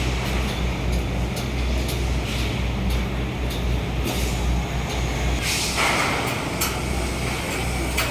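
Street traffic: heavy vehicle engines running with a steady low rumble, broken by short hissing bursts, the longest about five and a half seconds in.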